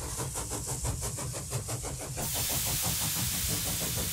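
Steam engine running with a quick, even rhythm of exhaust beats; about two seconds in, a steady hiss of steam joins and carries on.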